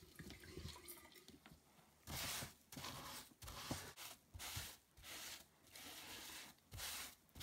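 Wet sponge with a scouring pad scrubbed back and forth over carved wood to rinse off a baking soda and vinegar stripping paste. About two seconds in it settles into a regular run of scrubbing strokes, about one and a half a second, after faint wet handling as the sponge is dipped in water.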